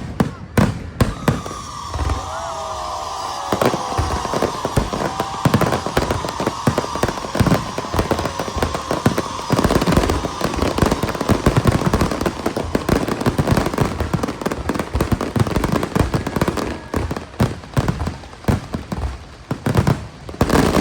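Aerial fireworks show in a dense barrage: rapid bangs and crackling one after another, with a whistling tone running over them for most of the barrage.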